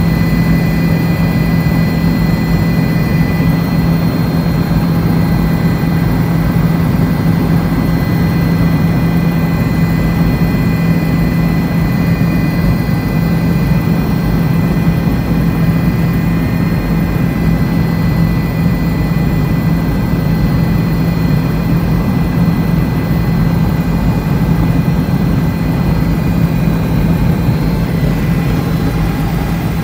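Helicopter in flight heard from inside the cabin: a loud, steady engine and rotor drone with thin, steady high-pitched whine tones above it.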